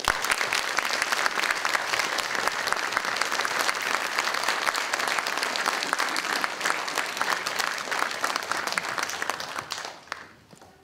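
Audience applauding: dense clapping that starts abruptly and dies away near the end.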